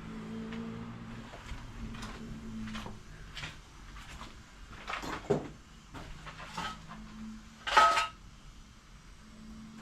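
Tools and parts being handled at a workbench: a series of light clicks and knocks, with a louder ringing metal clank about eight seconds in.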